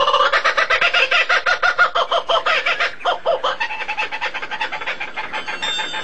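Fowl clucking in a fast, even run of short calls that grows fainter about halfway through.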